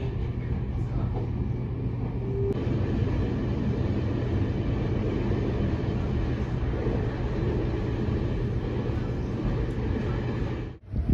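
Steady low rumble of a Taiwan Railways electric commuter train, heard from inside the carriage as it runs. The sound cuts off suddenly near the end.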